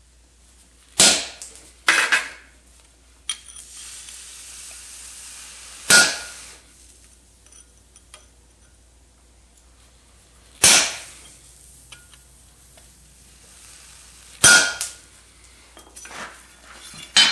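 Hand hammer striking a rectangular punch held on a red-hot 3/8-inch round-bar horseshoe on the anvil, hot-punching nail holes. There are about four hard single blows a few seconds apart, some followed by a lighter tap, and the heavier ones ring briefly.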